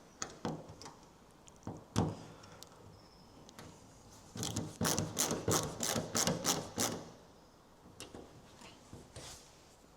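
Hand tools and steel hardware clicking and knocking as a 3/8 nut and screw are fitted to a clamp on a Willys MB bonnet. A quick run of a dozen or so sharp clicks comes near the middle.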